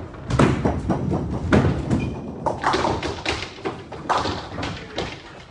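A nine-pin bowling ball thuds onto the lane on release and rolls down it, then the pins clatter as they are knocked over: a run of loud knocks and thumps over the first four seconds.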